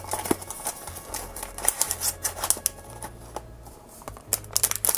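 A Pop Mart blind box's cardboard and its sealed plastic inner bag crinkling and crackling as the bag is pulled out and handled, in clusters of crisp, irregular crackles.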